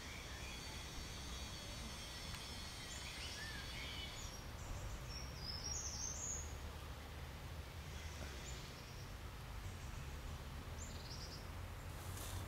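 Outdoor ambience: small birds chirping now and then, high-pitched, over a low steady rumble, with a brief click near the end.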